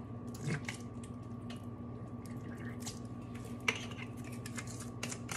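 Plastic squeeze bottle of barbecue sauce being handled, squeezed and capped: a few soft clicks and taps, the sharpest about half a second in and another near the four-second mark, over a steady low hum.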